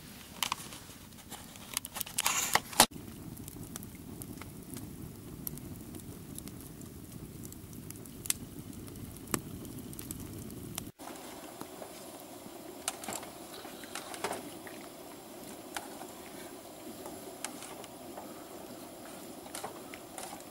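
Wood campfire crackling: irregular pops and snaps over a low steady rush.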